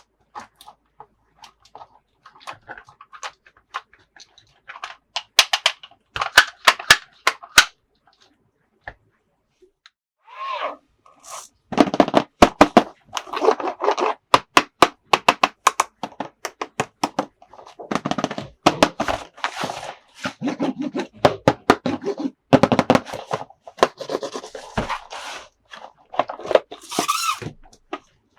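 Plastic toys and their packaging being handled close to the microphone: sharp clicks and taps, then a long stretch of dense crinkling and rattling from about twelve seconds in, with two short squeaky sounds.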